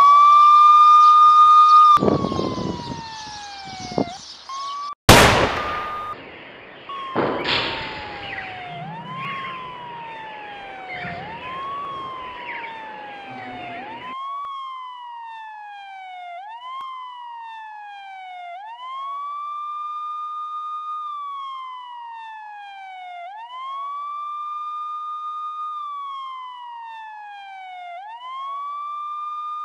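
Police siren wailing, each cycle rising quickly, holding high, then sliding down, repeating about every two and a half seconds. About five seconds in a single sharp gunshot cuts through, the loudest sound here, with a smaller crack a couple of seconds later.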